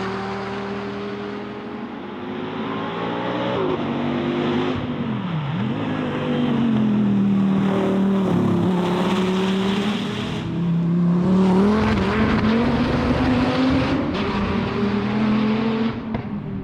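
Dodge Viper ACR's V10 engine driven hard, its pitch climbing under acceleration and falling away sharply at shifts, with a deep dip about five and a half seconds in before it pulls up again.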